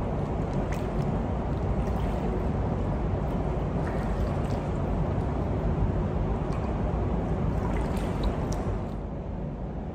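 Pool water sloshing and lapping around a person wading sideways, with small splashes and drips from arms sweeping through the surface, over a steady low rumble. About nine seconds in the sound drops and becomes duller.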